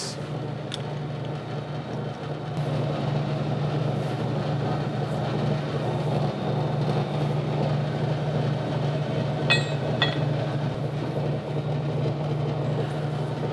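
Steady low machine hum from the shop, with two sharp metallic clinks about half a second apart, about nine and a half seconds in, as the steel part is turned over and re-clamped in the lathe's three-jaw chuck.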